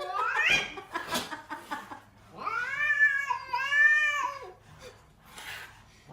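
Cat yowling: a rising call at the start, then two long drawn-out meows back to back around the middle.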